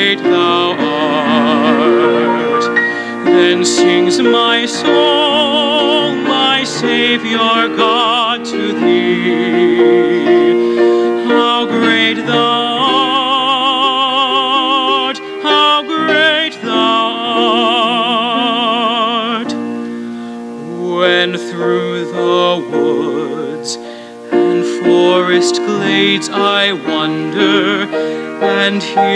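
Solo male voice singing a hymn with wide vibrato, accompanied by grand piano. The music softens briefly about three-quarters of the way through, then builds again.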